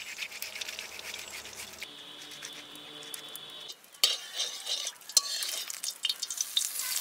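A tomato rasped on a steel hand grater, then a metal spatula scraping and clinking in an aluminium kadai while hot oil sizzles, with sharp clinks from about four seconds in.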